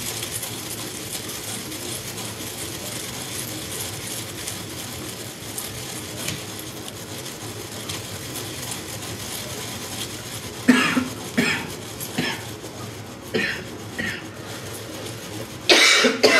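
Granite pestle grinding dry cornflakes in a granite mortar, a steady scraping grind. From about ten seconds in a person coughs several times, and again near the end, set off by chili dust from the mortar.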